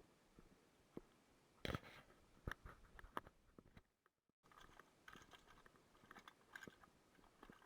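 Faint, scattered clicks and short rustling or crunching noises over quiet room tone, with a brief dead gap about four seconds in.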